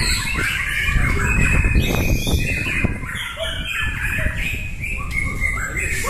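Several caged white-rumped shamas singing at once, their loud warbling and whistled phrases overlapping without a break, over a steady low background rumble.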